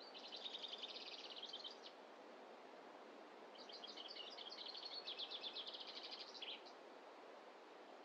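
A small songbird singing two rapid trills of quick, high repeated notes, the second longer, over a steady faint hiss of forest ambience.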